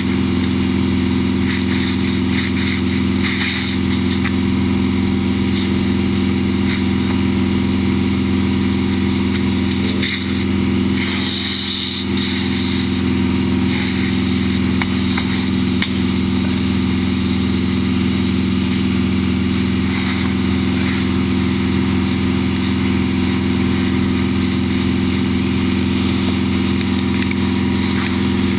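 Fire engine running steadily at high idle to drive its pump and feed the hose line: an unbroken, even engine drone.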